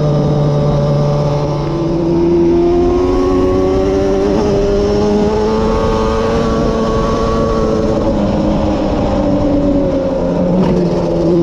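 Yamaha Banshee ATV's twin-cylinder two-stroke engine running hard, heard from the rider's seat. Its pitch climbs steadily for several seconds as it pulls, then drops back about eight seconds in.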